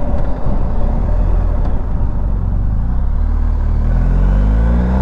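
BMW R1250 GS Adventure's boxer-twin engine running under way, with rough wind buffeting on the microphone; from about three and a half seconds in, the engine note rises as the bike accelerates.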